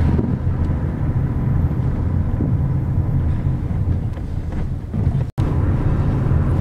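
Steady low rumble of engine and road noise inside a moving car's cabin, with a momentary dropout a little past five seconds in.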